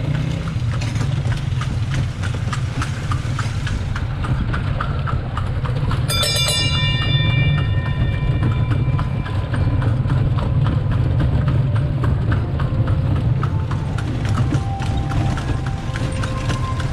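A horse's hooves clip-clopping on cobblestones as the horse and cart roll along, the cart's wheels running over the stones underneath. About six seconds in a bell rings once and fades away over a few seconds.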